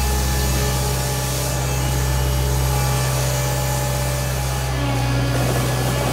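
Gehl 1648 asphalt paver's engine running steadily, with a slight change in tone about five seconds in.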